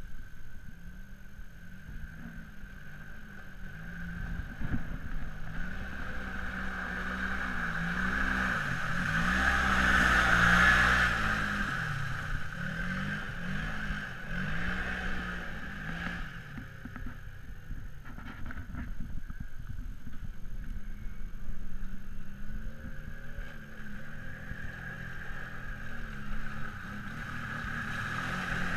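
ATV engines revving up and down as quads work through mud on a trail, loudest about a third of the way in.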